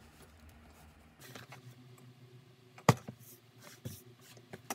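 Small clicks and rustles of a knife and trimmed canvas being handled on a cutting mat, with one sharp knock about three seconds in and a few lighter taps near the end.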